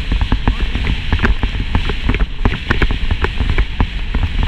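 Wind buffeting the microphone of a bicycle-mounted GoPro, with a constant jumble of sharp rattles and knocks as the bike rolls over rough, cracked asphalt.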